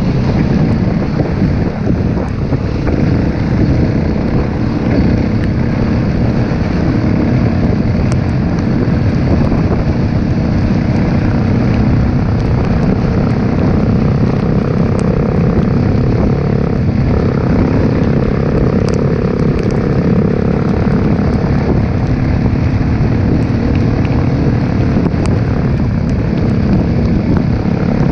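Trail bike being ridden, its engine running steadily beneath heavy wind rush on the camera's microphone.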